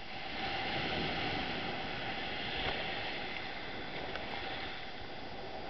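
Small waves breaking and surf rushing and washing up the shore, a steady wash of water that swells at the start.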